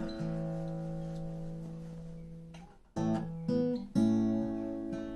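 Acoustic guitar chords left to ring: one chord struck at the start rings and slowly fades for nearly three seconds, then a few quick strums about three seconds in ring out and fade again.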